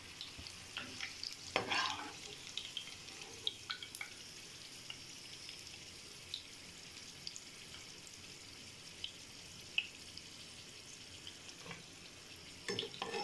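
Potato fries frying in hot ghee in a wok: a steady sizzle with scattered crackles and pops. A steel slotted spoon stirs and knocks against the pan, loudest about a second and a half in and again near the end.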